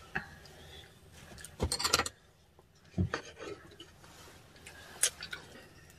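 Tableware clinking during a meal: a short clatter of dishes and utensils a couple of seconds in, a dull knock about a second later, and a few single clicks.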